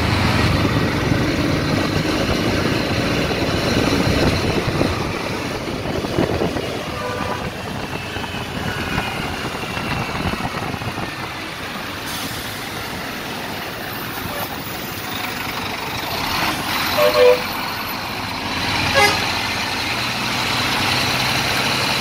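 Diesel engine and road noise of city traffic around a Scania multi-axle coach, steady throughout. Short vehicle horn toots cut in a few times, the loudest about two-thirds of the way through and another a couple of seconds later.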